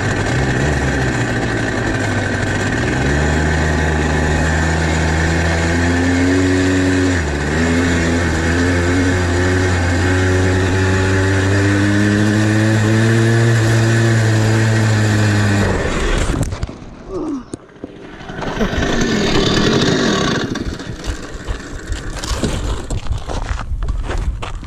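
Dirt bike engine running at a fairly steady pitch, dipping briefly about seven seconds in, then cutting off suddenly about sixteen seconds in. After it come a short rush of noise and scattered knocks.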